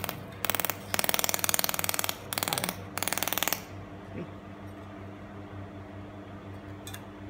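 300 W pulsed laser welding machine firing on stainless steel sheet: four bursts of rapid, even crackling buzz in the first three and a half seconds. After that only the steady low hum of the machine and its water chiller, with a couple of faint clicks.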